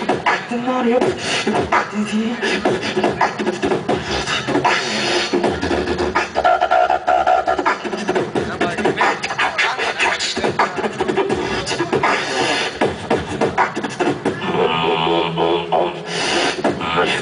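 Live beatboxing into a handheld microphone over a PA: a fast run of vocal kick, snare and hi-hat clicks, with stretches of hummed and buzzing pitched tones worked into the rhythm.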